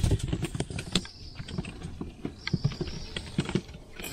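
Irregular knocks, taps and slaps on a fiberglass boat deck as a freshly caught shellcracker is handled and put away through a deck hatch. A steady high-pitched buzz runs behind them.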